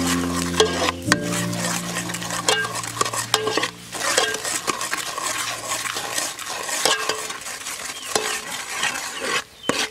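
Chopped garlic sizzling in a sauce in a metal pot as a metal ladle stirs and scrapes it, with frequent clicks of the ladle against the pot.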